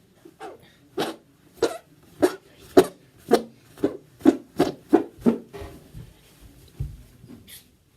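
A person making a quick run of about a dozen short, rasping noises that come closer together and louder, then stop after about five seconds; a few faint low rumbles follow, and one more brief noise comes near the end.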